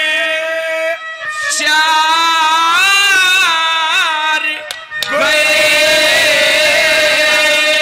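Male ragni singer belting long, ornamented held notes in two phrases, with a short break about a second in and another near the five-second mark. A harmonium holds steady notes underneath.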